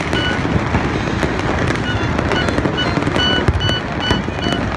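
Citywide New Year fireworks and firecrackers going off together: a continuous din of cracks and bangs over a steady rumble. Through it, a short high beep repeats about three times a second.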